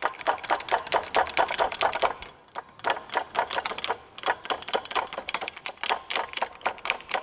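Ratchet wrench clicking in quick runs, several clicks a second, as it is swung back and forth on a bolt in a car's engine bay, with two brief pauses.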